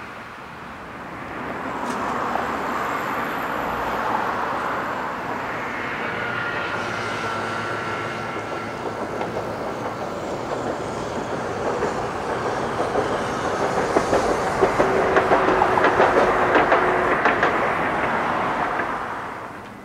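Hiroshima Electric Railway streetcar passing on street track, its wheels clattering over the rail joints in quick clicks. The sound builds to its loudest in the second half and drops away near the end.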